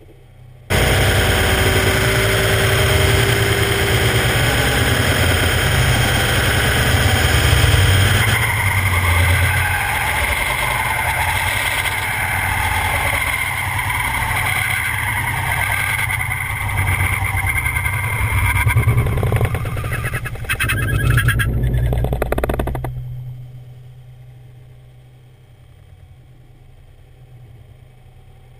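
Car and front passenger tire running at speed through a critical-speed yaw test: loud rushing road and wind noise over a low rumble, with a steady squeal through the middle as the tire scuffs sideways. It starts abruptly about a second in and dies away after about 23 seconds as the car comes to rest, leaving a quiet low rumble.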